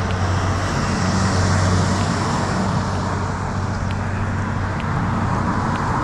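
Steady motor-vehicle noise: an engine running with a low, even hum over road traffic.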